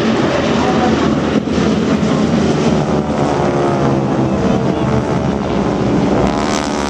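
Propeller aircraft flying past during an airshow battle demonstration: a loud, continuous engine drone whose pitch slides as the plane passes.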